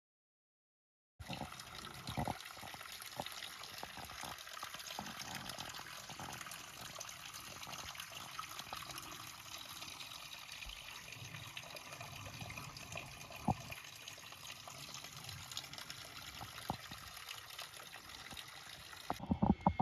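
Steady rush of flowing water, starting about a second in, with a few faint knocks over it.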